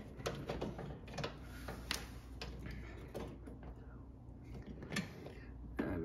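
Scattered small plastic clicks and taps as a three-prong rocker switch is pushed and worked into the tight cutout in an electric fireplace heater's plastic housing, the sharpest click about two seconds in.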